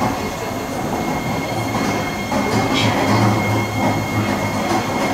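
Running noise of a Kawasaki-CRRC Sifang C151C MRT train heard from inside the car: a steady rumble of wheels on rail with a low hum that swells and fades, over a thin steady high-pitched tone.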